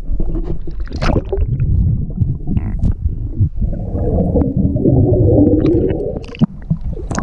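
Muffled underwater sloshing and bubbling, heard through an action camera's waterproof housing held below the surface, with a splash as it breaks the water near the end.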